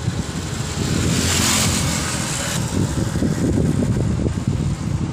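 Wind buffeting the microphone, with road traffic passing. A louder rushing hiss starts about a second in and cuts off suddenly about two and a half seconds in.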